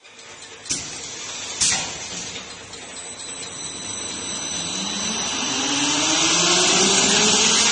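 Oil pouring through a two-nozzle weighing pail filler into plastic pails: a rushing hiss that grows louder, with a tone that slowly rises in pitch as the pails fill. Two sharp clicks come about a second apart near the start.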